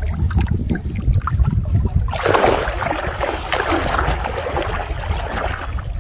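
River water splashing and sloshing around a person's legs as he wades through it, setting in strongly about two seconds in and going on in uneven surges. Before that, only a low rumble.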